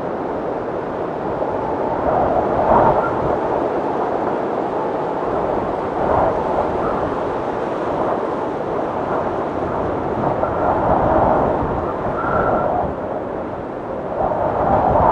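Blizzard wind blowing hard and steadily, swelling in gusts, with a brief high whistle or two near the end.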